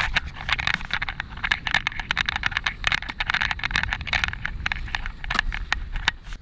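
Skateboard wheels rolling over a concrete skatepark: a steady rumble with many quick clicks and clacks as the board crosses cracks and grit.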